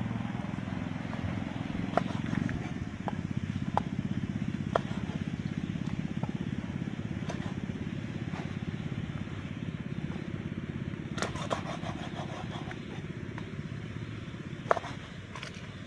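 Knife chopping raw frogs on a round wooden chopping block: about a dozen sharp, separate knocks, with a quick run of cuts about eleven seconds in and the loudest knock near the end. A steady low drone runs underneath throughout.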